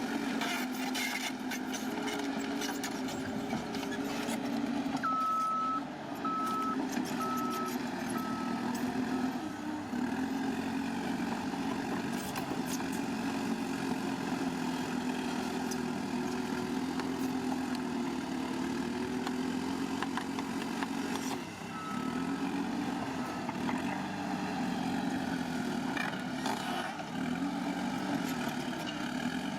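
Bulldozer's diesel engine running under changing load, its pitch rising and falling, with clanks from the tracks and blade. About five seconds in, a reversing alarm beeps five times, getting fainter, and beeps once more a little past twenty seconds.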